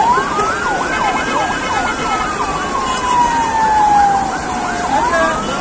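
Emergency vehicle sirens: a slow wail that rises, falls gradually over a few seconds and starts rising again near the end, overlapping with a faster siren sweeping up and down several times a second.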